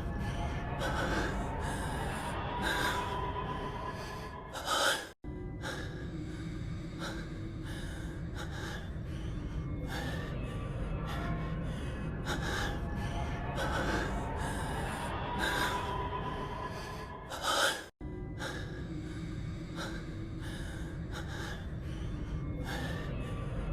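A man's heavy, gasping breaths, one after another, over low background music. The clip is a loop about thirteen seconds long that cuts out for an instant where it restarts, about five seconds in and again near eighteen seconds.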